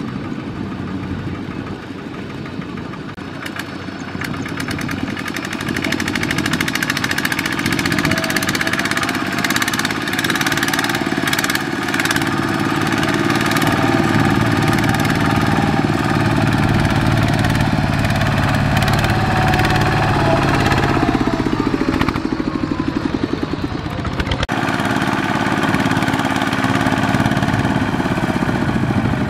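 Kubota RT120 power tiller's single-cylinder diesel engine running steadily under load as the tiller pulls a loaded trailer through mud, growing louder as it comes closer. About three-quarters through, the engine note falls away briefly, then steadies again.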